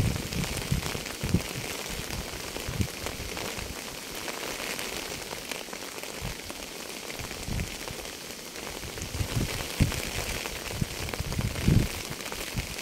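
Steady rain falling, a fine even hiss of drops, with heavier drops landing close by as irregular low thuds every second or two.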